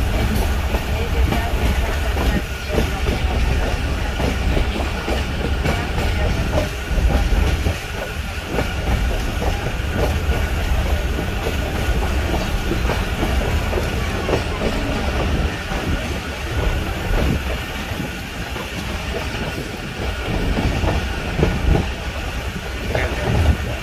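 Passenger train running along the track, heard from aboard: a steady low rumble with the wheels clattering over the rails.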